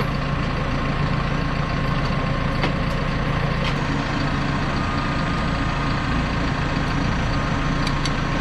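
Heavy diesel engine running steadily at a constant pitch, with a few faint clicks over it.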